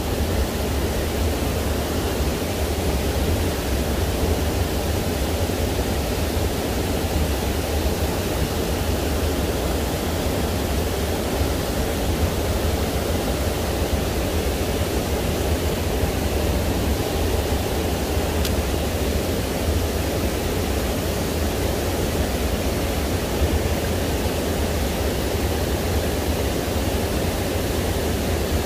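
Steady rush of water pouring over rocks close by, an even noise with no breaks or changes.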